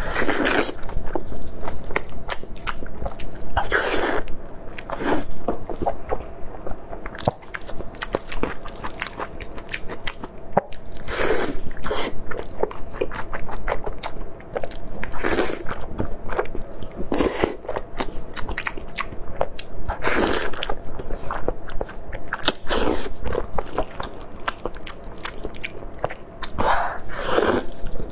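Close-miked eating of sauce-glazed pig's trotters: biting into and chewing the sticky skin, with constant wet mouth clicks and a louder bite every few seconds.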